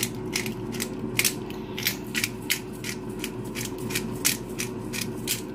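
Hand-held black pepper grinder being twisted over a bowl, giving short dry cracking rasps about three times a second as the peppercorns are ground.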